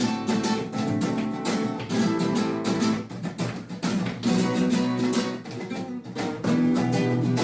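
Background music: acoustic guitar played with quick plucked and strummed notes in a flamenco style.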